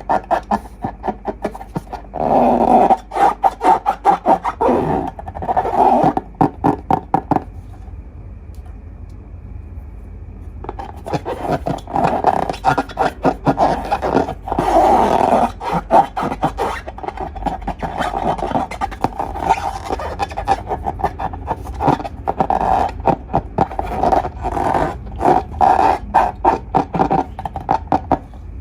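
Slime being squeezed and kneaded by hand: rapid sticky squelches and crackling pops in dense runs, pausing for a few seconds about a third of the way in.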